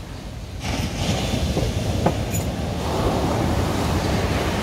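Ocean waves breaking and washing up the beach: a steady rushing noise that swells sharply about half a second in.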